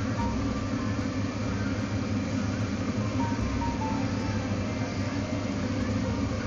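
Soft background music over a steady low hum.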